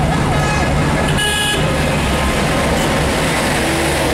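Busy road traffic with a steady engine drone. A warbling siren wails up and down about three times a second and stops within the first second, and a short horn toot sounds about a second in.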